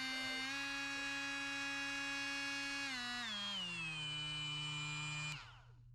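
Kobalt 24-volt cordless oscillating multi-tool running with no load, a steady high buzzing hum as it is run through its variable-speed settings. The pitch shifts up slightly about half a second in and drops a step around three seconds in. Near the end the tool is switched off and the whine falls away as it winds down.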